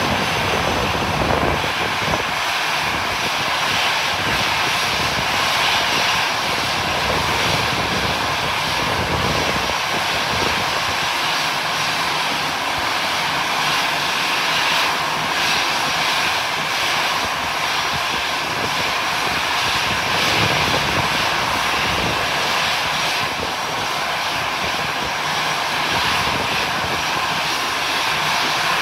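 Aircraft engine running steadily: a continuous rushing hiss that holds at an even level throughout.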